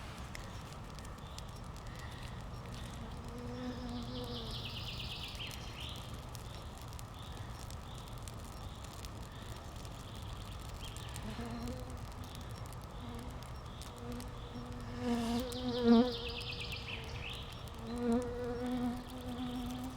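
A flying insect buzzing close by, its drone wavering and coming and going several times, loudest about three quarters of the way through.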